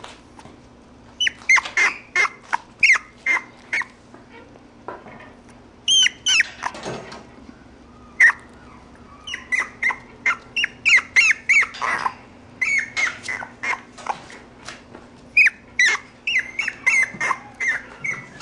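Puppy yipping and whining in short, high-pitched calls that come in quick runs of several, with short pauses between the runs.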